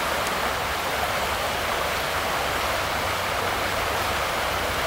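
Steady rushing of a mid-sized stream's current flowing over shallows.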